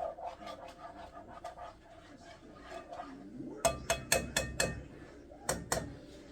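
A metal utensil knocking and scraping against a cooking pot while garlic is stirred, with a quick run of about six sharp clanks with a metallic ring a bit past halfway and two more near the end. Faint crackling of the garlic sautéing underneath at first.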